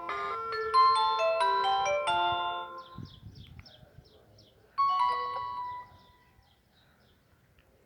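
Alcatel OT-2012D mobile phone playing its ringtones through its small speaker. A quick melody of clean electronic notes ends about three seconds in, and a short chime rings once about five seconds in and fades.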